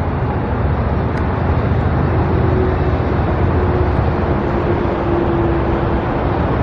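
Steady road traffic noise, with a vehicle hum that holds from about two seconds in and fades near the end.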